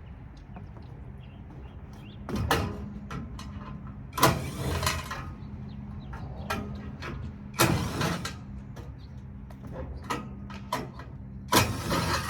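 Loud metal clanks and scrapes, four main ones with smaller knocks between, as an air-conditioning unit is pulled apart for scrap, over a steady low hum.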